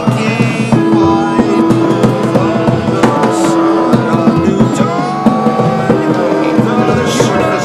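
Live freeform music jam with drums and a guitar or other instrument holding long notes, some of them sliding in pitch, with splashy cymbal-like hits about three seconds in and near the end.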